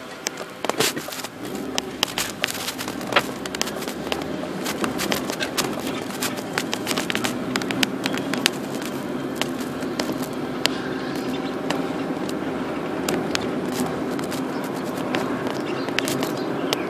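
Car driving, heard from inside the cabin: a steady hum of engine and road noise, with frequent sharp clicks and crackles over it, more of them in the first half.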